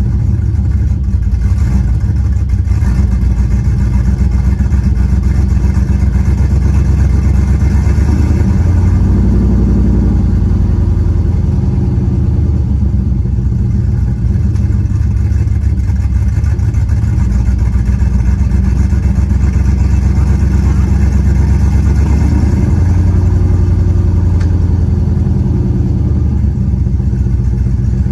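Chevrolet Silverado 5.3-litre V8 idling steadily after a cold start, heard through a Carven TR series muffler. The idle speed rises a little and settles back twice, around ten seconds in and again past twenty.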